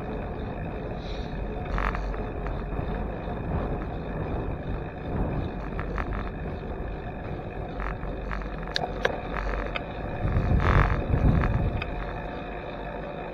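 Wind on a handlebar-mounted camera's microphone and tyre noise from a bicycle rolling on asphalt. A few light clicks and rattles come through, and there is a louder rush of about a second near the end.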